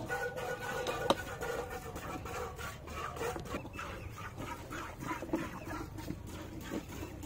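A cow being milked by hand: short, rhythmic squirts of milk streaming into a pail, a couple of strokes a second.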